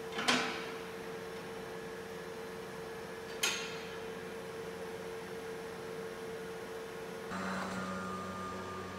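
Steady electric hum of a vacuum lifter's pump and drive, with two sharp clicks, one just after the start and one about three and a half seconds in. Near the end the hum changes to a lower, fuller drone.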